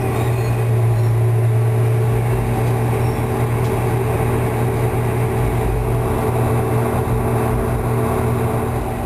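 Detroit Diesel 6V92TA two-stroke V6 diesel of a 1990 Orion I transit bus, heard from inside the cabin, running steadily with a low, even drone as the bus slows to a stop.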